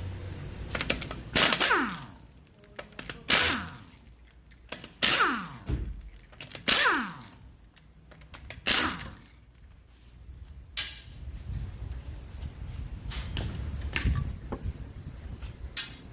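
Impact wrench taking off the wheel's lug nuts: five short hammering bursts about two seconds apart, each winding down in pitch as the trigger is let go, followed by a few lighter knocks and clanks.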